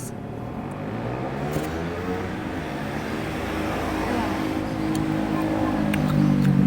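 A motor vehicle engine passing close by, its pitch gliding and its sound growing steadily louder, with a few faint clicks.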